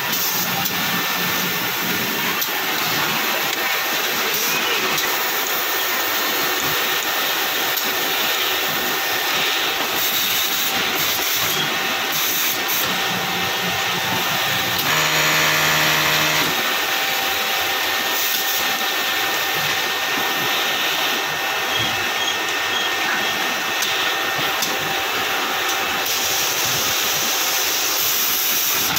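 Steady mechanical whirring of industrial sewing machines, one of them a lockstitch machine fitted with a hemming folder. About halfway through, a humming tone rises over the noise for a second or two.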